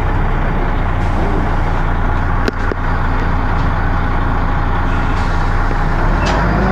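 Dennis Arrow double-decker bus's diesel engine running loudly with a dense low drone. There is a sharp click about two and a half seconds in, and rising whines begin near the end.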